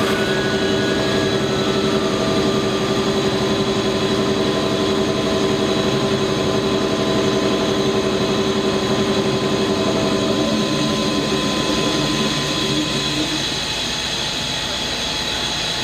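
Krupp M1500B diesel-hydraulic locomotive's engine running steadily with a high whine over the engine note, dropping back a little in the last few seconds.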